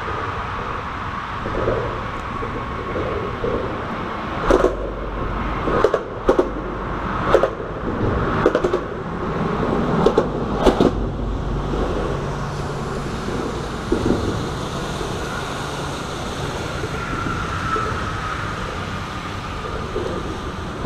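Steady rumble of vehicle traffic on the bridge overhead, deepening for several seconds in the middle as heavier traffic passes. Over it come a string of sharp knocks and clicks about a third of the way in.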